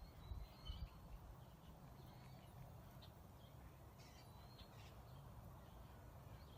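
Near silence: a faint low background rumble with a few faint, short, high bird chirps.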